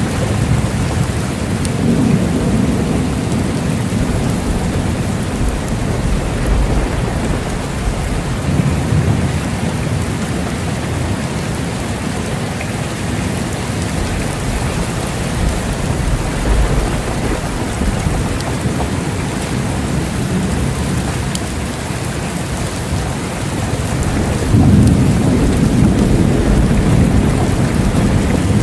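Steady heavy rain with rolling rumbles of thunder underneath, one swelling louder near the end.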